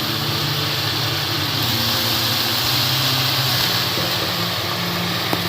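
Onion-tomato masala paste sizzling steadily in a hot pan just after a little water is added, over a steady mechanical hum.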